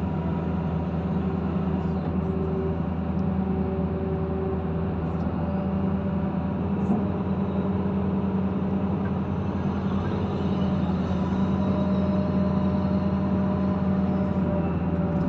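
Kobelco SK130 excavator's diesel engine running steadily at a constant speed, with fainter higher tones coming and going over the low hum.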